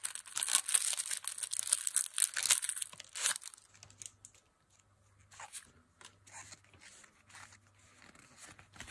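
Foil Pokémon booster pack wrapper being torn open and crinkled: dense crackling for about the first three seconds. Then softer, scattered rustles and taps as the cards are slid out and handled.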